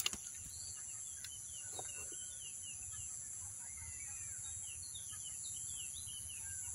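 Small birds chirping repeatedly in short, falling notes, over a steady high-pitched hiss.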